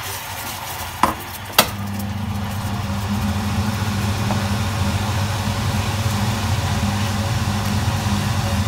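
Two sharp knocks about a second in, then a steady low machine hum sets in and runs on, under hot caramel sauce bubbling in a stainless steel saucepan as it is stirred and cream is poured in.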